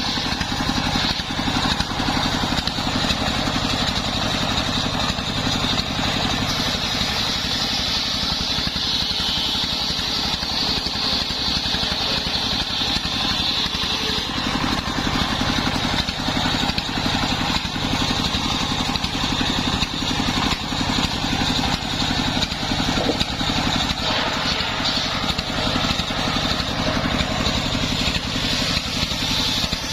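Homemade engine-driven circular saw running steadily while sawing sengon wood into beams, the engine's fast even pulse under a high blade noise that swells in the first half and again near the end.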